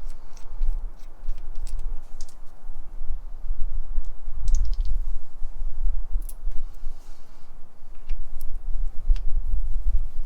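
Scattered light metallic clicks and taps of hand tools at work, including a quick run of clicks about four and a half seconds in, over a low rumble.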